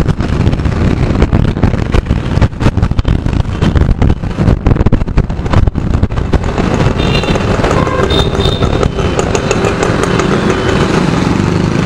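Yamaha FZ V3.0 motorcycle's 149 cc single-cylinder engine running while riding in traffic, under loud, uneven wind rush on the bike-mounted camera's microphone.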